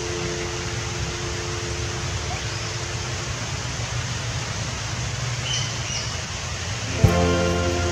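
Steady rain hiss, with water streaming off the edge of a corrugated metal roof, and a brief high chirp a little past halfway. Music comes back in with a thump near the end.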